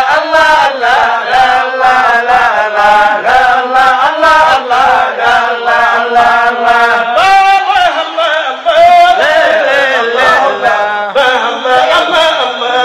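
Male voices chanting a Sufi zikr in Arabic: a continuous melodic line with long, gliding held notes.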